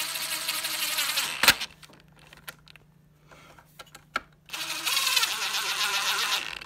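Cordless impact driver running in two short bursts of about two seconds each, driving small aluminum screws into a hoverboard's aluminum frame, with a sharp click as the first burst stops.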